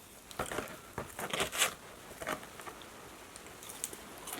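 Close-miked eating sounds: a run of crunchy bites and wet chewing clicks in the first two seconds, one more near the middle, then only faint mouth clicks.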